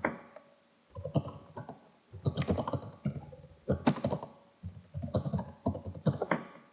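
Typing on a computer keyboard: several quick flurries of keystrokes with short pauses between them.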